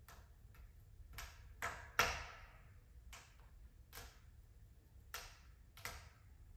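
Wood fire crackling in a glass-fronted fireplace insert: scattered sharp pops about once a second, the loudest about two seconds in, over a faint low hum.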